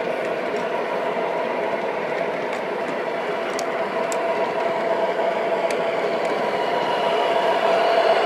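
O gauge model train rolling past close by: a steady rumble of metal wheels on the track with a steady hum, and a few faint clicks. It grows louder near the end as the diesel locomotives go by.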